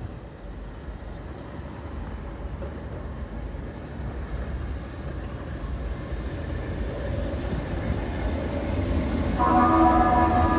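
Keihan 600-series electric train running, its low rumble growing steadily louder. A horn sounds once near the end, a steady chord lasting about a second.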